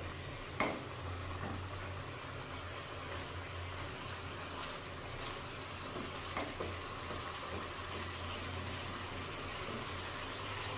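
Chicken and thick masala sizzling and bubbling in a wok over a high flame, the bhuna stage of frying the curry down. A wooden spatula knocks and scrapes against the pan about a second in and again about six seconds in, over a steady low hum.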